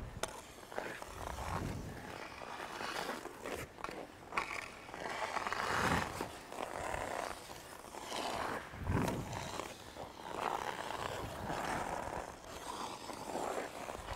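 Hockey skate blades carving and scraping on ice through strides, steps and turns, in uneven swells every couple of seconds.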